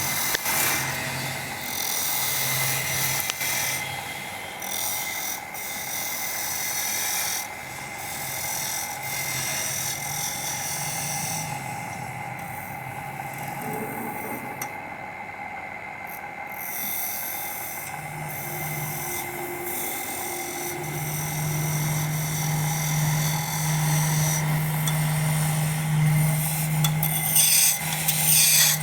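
Wood lathe running, with a tool rasping against the spinning wood. The scraping eases off for a few seconds midway and then returns, while the lathe's low hum grows stronger in the second half.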